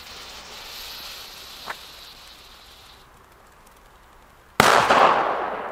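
Lit fuse of a Weco Donnerschlag banger (firecracker) hissing and fizzing, fading after a few seconds. About four and a half seconds in, the banger goes off with one sudden loud bang that echoes away over about a second.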